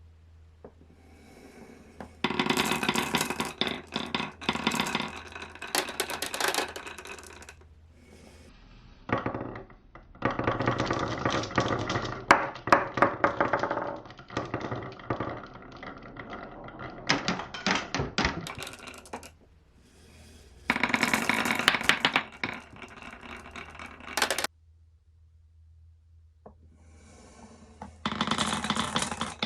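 Marbles rolling and clattering down a marble run slope toy: four runs of dense, rapid clicking, each lasting a few seconds to about ten, with short quiet gaps between them.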